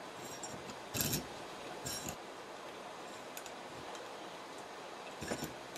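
Small twist drill in a hand pin vise boring holes in thin brass sheet: faint scraping and ticking as the bit is turned, with a few sharper metallic clicks about a second in, around two seconds in and near the end.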